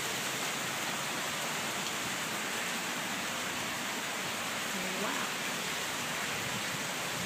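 Hail falling steadily: a dense, even hiss of small hailstones striking the ground.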